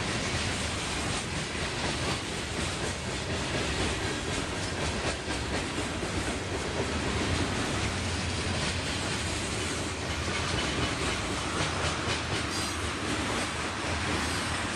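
Freight cars of a long manifest train (boxcars, covered hoppers and tank cars) rolling past close by: steel wheels running on the rail with a steady noise and a rapid clicking as wheels cross rail joints.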